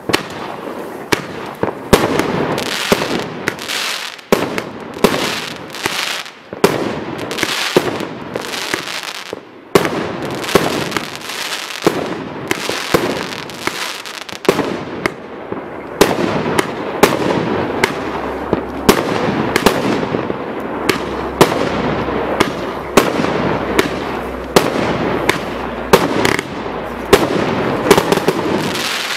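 A 25-shot fireworks cake with 30 mm tubes firing its shots in quick succession. There is a sharp bang about every second, with crackling from the bursts in between.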